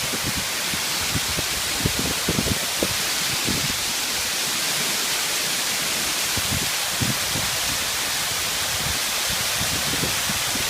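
Waterfall: a steady, even rush of falling water, with irregular low thuds underneath.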